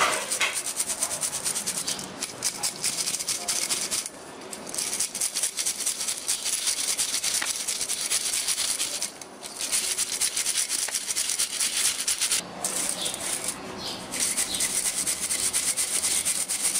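Ground cashew powder being sifted through a flour sieve: a rapid, rasping rattle of the shaken sieve, which stops briefly a few times.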